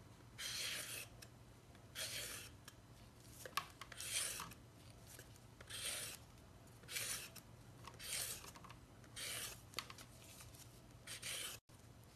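Vegetable peeler shaving the skin off a white radish (daikon): a rasping scrape with each stroke, about one stroke a second.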